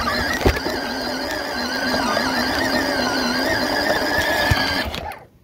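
Power Wheels ride-on toy car's electric motors and gearbox whining steadily as it drives, stopping abruptly near the end.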